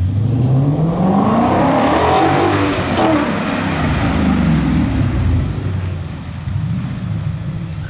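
Tuned 2017 Ford Mustang GT's 5.0-litre V8 accelerating: the revs climb for about three seconds, then drop back and settle into a lower steady drone.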